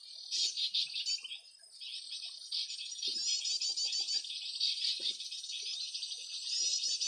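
High-pitched bird song of rapid repeated notes that runs almost without a break, fading briefly about a second and a half in before picking up again.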